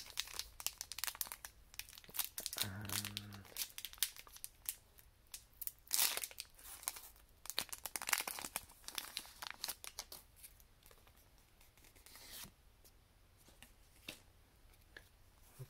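A Pokémon TCG Champion's Path booster pack's foil wrapper being torn open and crinkled: a run of sharp crackles and rips, loudest about six and eight seconds in. The handling grows quieter after about ten seconds.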